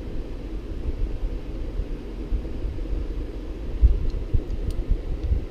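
Steady low hum of background noise with a few soft low bumps and faint small clicks, as small parts are handled while a pin is pushed into an RC crawler's rear drive shaft.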